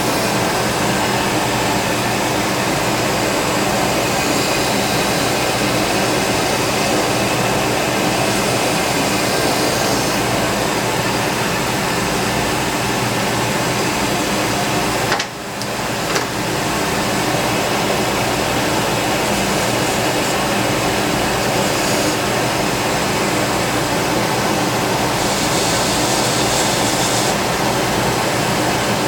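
Workshop dust collection system running with a steady loud rush. It dips briefly about halfway through, and a brighter hiss comes in twice for a few seconds each.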